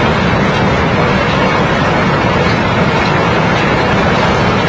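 Steady loud rumble and rattle of a mass of rounded stones sliding down a pile.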